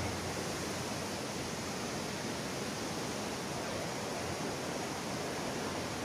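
Panasonic FM15E2 60-inch ceiling fan running: a steady, even whoosh of air moving off its spinning blades.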